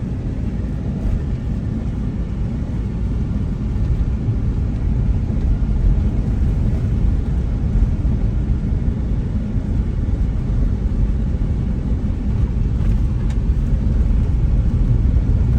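Steady low rumble of a car on the move, heard from inside the car: engine and tyre noise, slowly getting a little louder.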